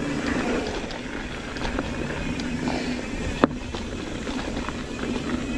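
Mountain bike rolling downhill on dirt singletrack: steady tyre rumble with small rattles and clicks from the bike, and one sharp knock about three and a half seconds in.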